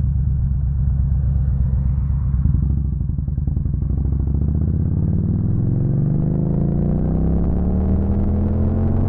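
Yamaha V Star 1300's V-twin engine running, then from about three seconds in its revs climb steadily as the motorcycle pulls away from the shoulder and accelerates.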